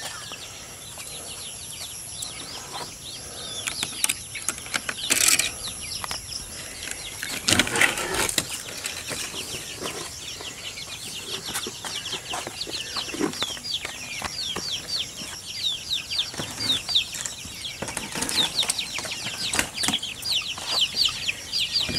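Young chickens in a wire pen flapping and scuffling, with a rapid run of high, falling peeps that starts about halfway through and builds toward the end. A couple of louder rustling knocks come about five and eight seconds in.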